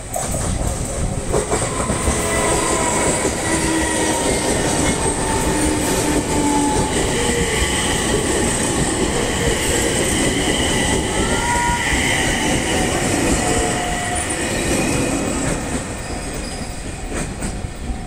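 Six-car JR East E721 series electric train passing slowly at close range, its wheels rumbling and clattering on the rails, with thin high squeals from the wheels coming and going. The sound eases off after about fifteen seconds as the train draws away.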